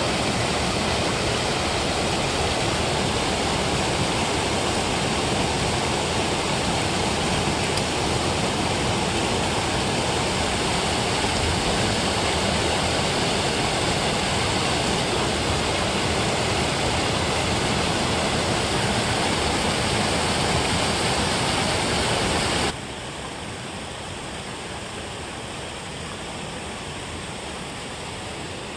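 Water pouring over a low concrete weir and churning in the pool below, making a steady rushing noise. About three-quarters of the way through it drops suddenly to a quieter level.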